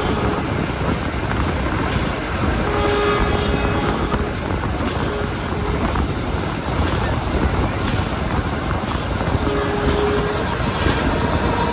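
Passenger train running at speed: a steady rumble and rushing noise of wheels on rail, with faint clacks roughly once a second and a brief held tone twice, about three and nine seconds in.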